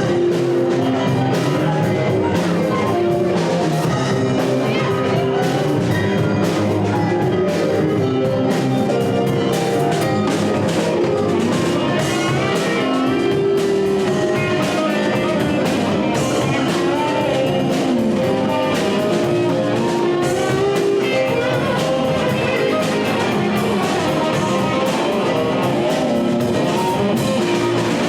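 Rock band playing: guitars over a drum kit at a steady loudness.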